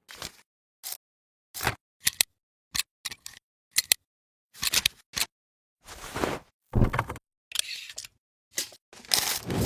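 A quick, irregular string of short edited sound effects, sharp clicks and brief noisy swishes, each cutting off abruptly into dead silence.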